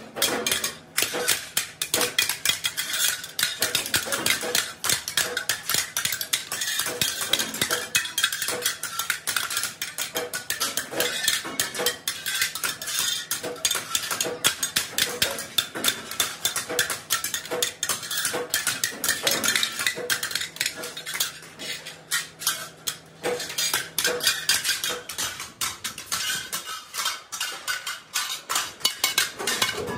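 Hand hammer striking steel chaff cutter blades on a round steel block: rapid, repeated metallic clanks, several a second.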